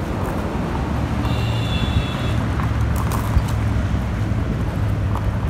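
Steady rumble of wind on the microphone and highway traffic while riding an e-bike across grass, with a brief high tone a little over a second in.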